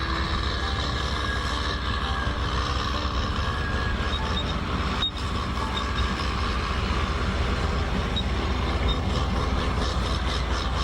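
Heavy diesel vehicle engines running steadily, with a brief break about five seconds in.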